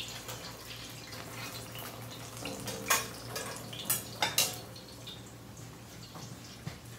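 Kitchen clatter: a few sharp clinks of dishes or kitchenware between about three and four and a half seconds in, over a steady low hum.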